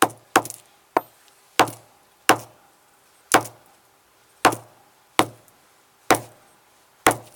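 Sledgehammer striking the punctured lithium battery from a JBL Clip speaker, about ten sharp blows roughly a second apart.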